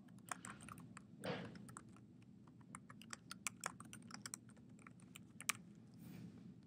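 Typing on a computer keyboard: a run of quick, irregular keystrokes with a louder key press near the end, faint.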